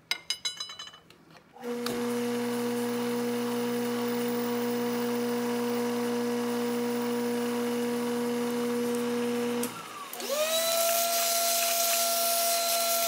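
Milling machine running steadily as a 1/4-inch four-flute end mill makes a pass along a slot in a steel bar; it starts about a second and a half in and stops just before ten seconds in. Then a shop vacuum is switched on, its whine rising in pitch and then holding steady as it sucks metal chips off the vise.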